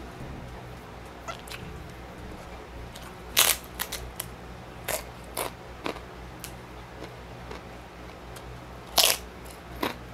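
Crisp pork chicharon (fried pork rind cracklings) crunching as it is bitten and chewed, in short sharp crunches: two loudest bites, about three and a half seconds in and about nine seconds in, with smaller crunches between.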